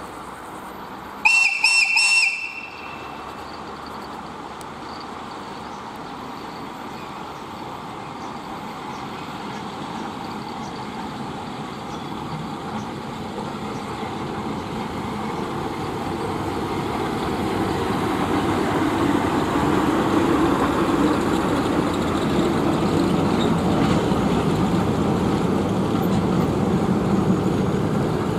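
VL8M electric locomotive giving a brief, high-pitched whistle, broken into a few quick pulses, just over a second in. Then the running noise of the locomotive and its freight train grows steadily louder as it approaches and rolls past.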